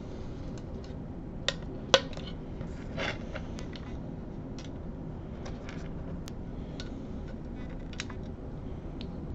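Scattered light clicks and taps of small screws and a screwdriver being handled against a metal microscope body, the two sharpest clicks about one and a half and two seconds in, over a steady low hum.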